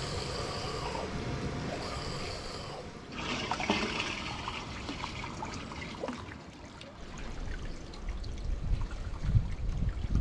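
Water trickling and pouring, with small clicks and knocks, and low wind rumble on the microphone near the start and end.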